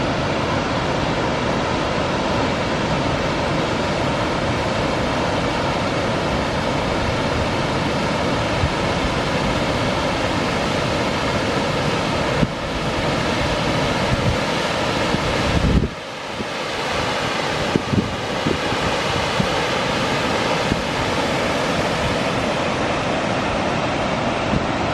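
Steady rush of a mountain creek's waterfall cascading over granite, with a short dip in level about sixteen seconds in.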